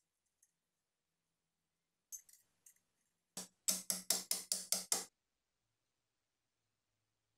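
A quick series of about eight sharp knocks, about five a second, lasting under two seconds, after a few fainter knocks a second earlier.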